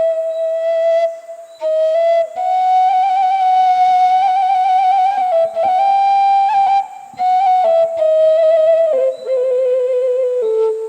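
Romanian caval (a long folk flute) playing a slow, melancholic doina melody solo, the held notes wavering with ornamented vibrato. The phrases are broken by short pauses, and the line steps down to lower notes near the end.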